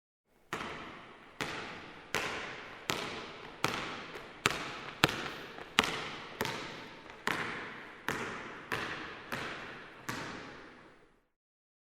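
A basketball being dribbled, about fourteen bounces at a steady pace of a little more than one a second, each bounce echoing as it fades. The bouncing stops about eleven seconds in.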